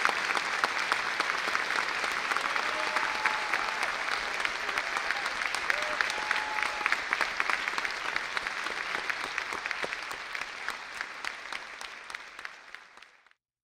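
Audience applause: many hands clapping together, fading away over the last few seconds and then cutting off just before the end.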